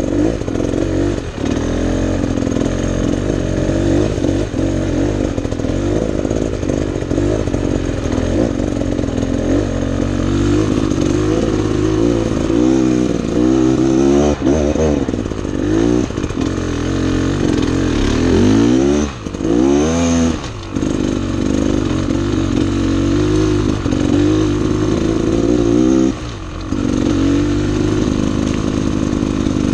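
Two-stroke enduro dirt bike engine running hard, heard from the bike itself, its pitch rising and falling with the throttle. It drops off briefly twice about two-thirds of the way through and once more near the end.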